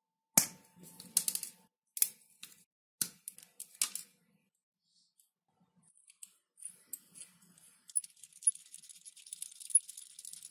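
Steel side cutters snipping through nylon plastic: a series of sharp snips over the first four seconds, the first leaving a brief metallic ring. From about six seconds a threaded bit in a hand pin vise is twisted into a nylon disc, giving a light scratchy rasp that grows steadier toward the end.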